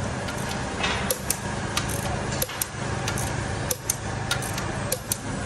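Long-handled torque wrench tightening a car's wheel bolts: a series of sharp metallic clicks and clinks at irregular intervals over a steady workshop hum.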